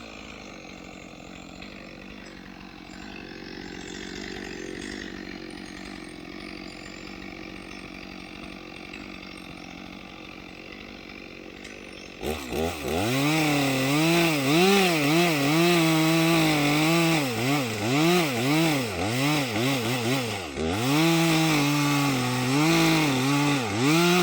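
A chainsaw runs quietly at idle for about twelve seconds, then is throttled up and cuts into a tree, its engine pitch rising and dipping over and over as the chain works through the wood.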